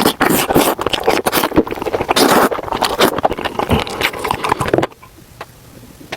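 Close-miked mukbang eating sounds: wet slurping and chewing of food, with many small clicks and smacks. The sounds stop abruptly about five seconds in.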